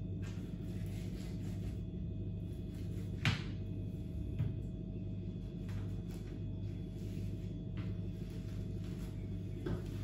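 Kitchen knife cutting the legs off a raw whole chicken on a plastic tray, with a few sharp knocks of the blade against the tray, the loudest about three seconds in. A steady low hum runs underneath.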